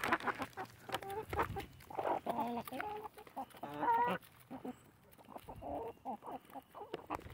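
A flock of hens and a rooster clucking, with quick ticks of beaks pecking sunflower seeds from a hand; the clucking is loudest and most continuous between about two and four seconds in.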